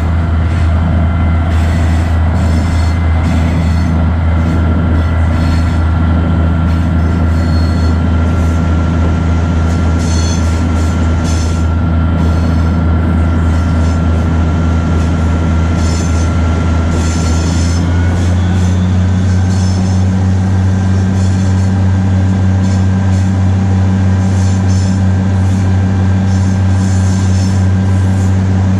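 Engines of a 1943 GE 80-ton diesel-electric switcher running steadily under way, a loud low drone that shifts slightly higher about eighteen seconds in, with the wheels squealing briefly on the rails now and then on the curves.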